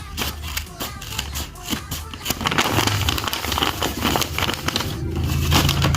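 Paper and plastic tape crinkling and crackling as a handmade paper blind bag is handled and opened: a rapid run of sharp crackles that grows denser about halfway through.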